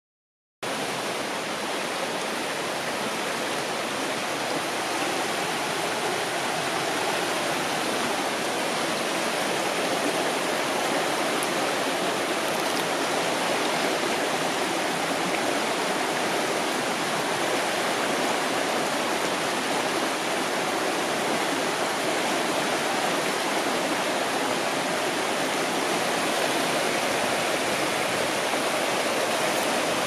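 Shallow, boulder-strewn mountain river rushing steadily over and between rocks.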